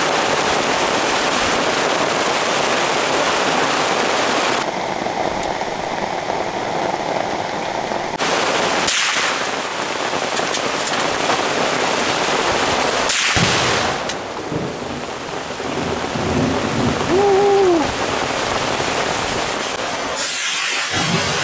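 Steady, heavy rain, with two sharp rifle shots about nine and thirteen seconds in.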